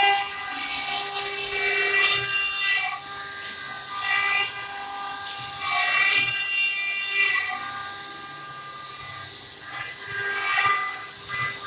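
Multi-spindle CNC stone-carving machine at work: a steady high whine from the spindles, with surges of grinding noise as the bits cut into the stone. The two biggest surges come about two seconds and six seconds in.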